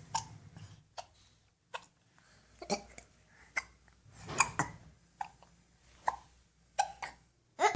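A baby hiccuping repeatedly, a short sharp hic about once a second.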